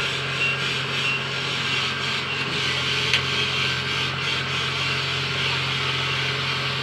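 Kubota DC-70 Plus combine harvester running steadily, a constant mechanical drone with one short sharp click about three seconds in.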